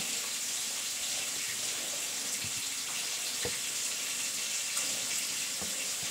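Fish frying in hot oil: a steady sizzling hiss with a few faint pops.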